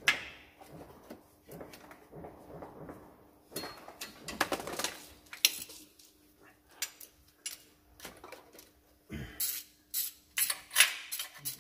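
Hand tools clicking and clinking on metal as bell housing bolts are fitted between a diesel engine and its gearbox. Scattered knocks give way to a quick run of sharper clicks near the end.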